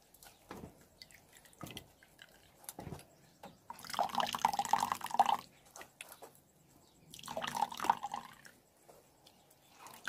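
Water from hand-pressed grated onion dripping and trickling through a metal sieve into a bowl, with scattered small drips and two longer spells of trickling about four and seven seconds in.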